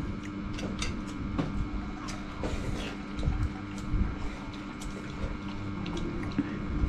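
Metal spoons clicking and scraping against ceramic bowls of rice and soup as people eat, light clicks scattered throughout, over a steady low hum.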